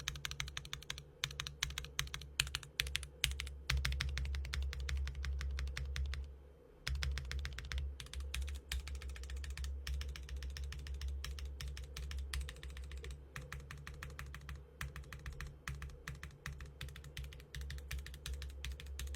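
Fast, continuous typing on a clacky custom mechanical keyboard, keystrokes clicking in quick runs, with a brief pause about six seconds in.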